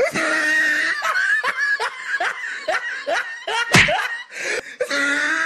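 A person laughing in a quick run of short ha-ha syllables. A single sharp crack comes about four seconds in.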